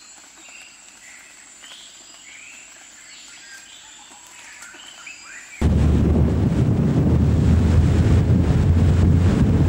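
Birds chirping faintly over a quiet outdoor background. About five and a half seconds in, a loud, steady rumbling noise cuts in abruptly and drowns everything else.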